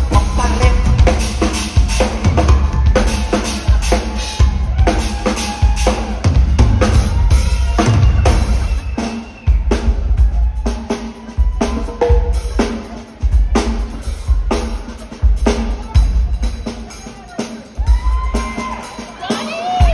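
Rock drum kit played in a live solo: fast snare and rimshot strokes over kick drum, in busy runs broken by a few short pauses.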